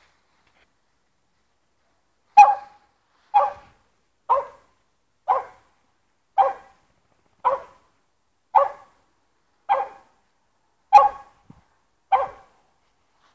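A small long-haired dog barking ten times, one short sharp bark about every second, starting about two seconds in.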